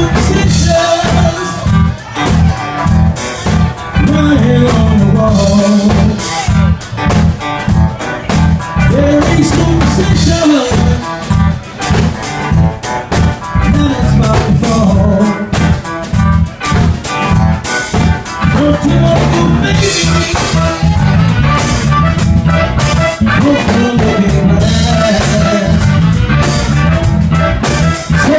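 Live band playing loudly: singers over drums and a heavy low bass line.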